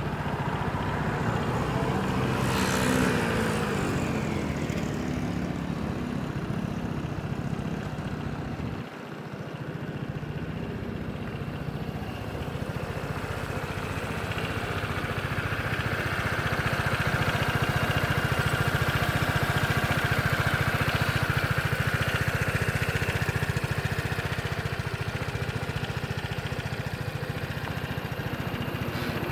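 Piaggio Vespa GTS 300 Super's single-cylinder four-stroke engine idling steadily, with a brief rise in pitch about three seconds in.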